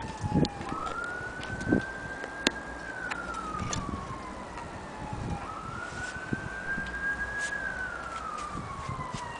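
Emergency vehicle siren in a wail pattern: the pitch climbs quickly, holds, then slides slowly down, twice over. A few light clicks and knocks sound close by.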